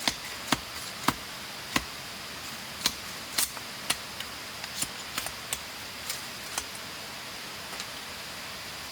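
A series of sharp, irregular knocks or taps, about a dozen, coming quicker early on and thinning out toward the end, over a steady background hiss.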